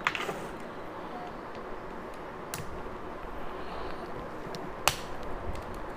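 Small metal tool-handling clicks and taps, a hex key working on the screws of an FPV drone's frame, with the sharpest click about five seconds in.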